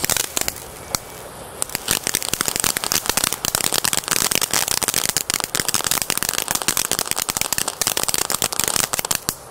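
F1 ground fountain firework burning: a hiss of sparks at first, then from about a second and a half in a dense, rapid crackling of popping stars that goes on steadily.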